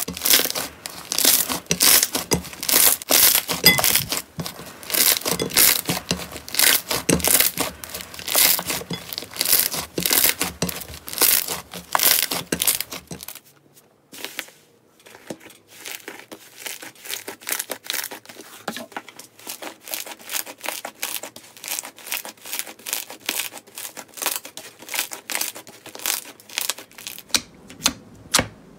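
Slime being squeezed and kneaded by hand, giving a fast run of loud crackling, popping clicks. About halfway through this gives way to a quieter, closely spaced patter of small pops and clicks as a different slime is pressed.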